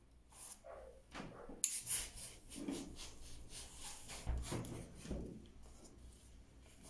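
Hands folding silk and interfacing on a cardboard board and pressing the fold with a clothes iron: fabric rustling and rubbing with a series of knocks, the loudest about two seconds in and again just after four seconds.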